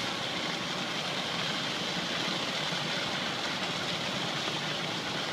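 Steady rushing noise of fire engines running their pumps to feed several hoses spraying water onto a burning building, even and unbroken.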